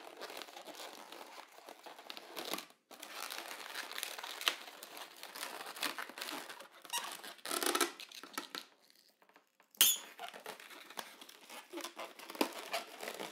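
White 260 latex modelling balloons rubbing, squeaking and crinkling as they are twisted and handled into bubbles. The sound is an irregular run of short scrapes and squeaks, with a brief pause about two-thirds of the way through.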